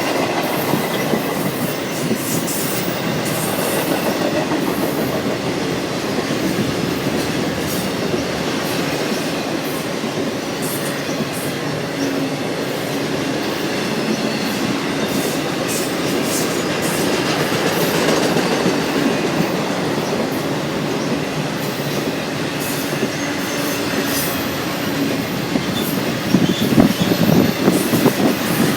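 BNSF intermodal freight train's cars rolling past at speed: a steady rumble of steel wheels on rail with repeated clicks and clatter over rail joints, and faint wheel squeal at times.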